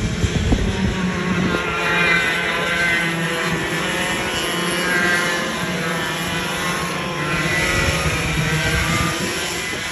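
Several racing go-kart engines buzzing as the karts run round the track, the sound swelling as they come closer about two, five and eight seconds in. A few short knocks near the start.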